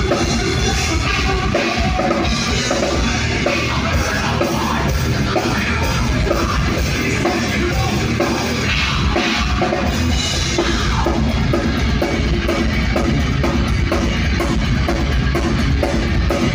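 A heavy metal band playing live and loud: electric bass and guitars over a drum kit. About two-thirds of the way through, the drums settle into a fast, even run of strokes.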